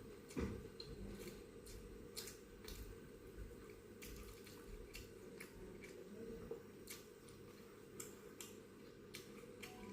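A person eating: faint, scattered wet mouth clicks and chewing sounds, several a second, over a low steady background hum.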